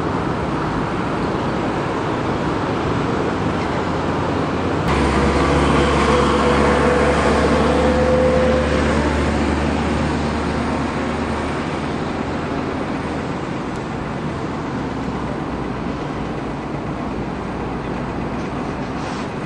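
Steady city traffic noise. A heavier vehicle passes with a low rumble, starting suddenly about five seconds in and fading out over the next six seconds or so.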